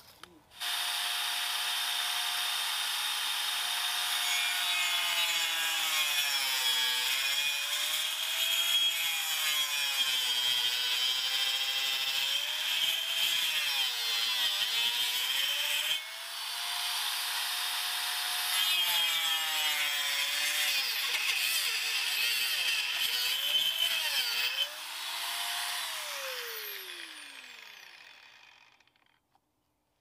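Angle grinder with a cutting disc cutting through birch poles: the motor's whine sags in pitch each time the disc bites into the wood and climbs back as it frees. It eases off briefly about halfway, cuts again, then is switched off and winds down with a long falling whine.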